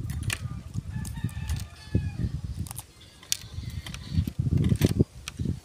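A rooster crowing in the background, one call of about two seconds starting about half a second in. Close crackling clicks and low knocks come from eggshells being peeled off grilled eggs by hand, the low knocks loudest near the end.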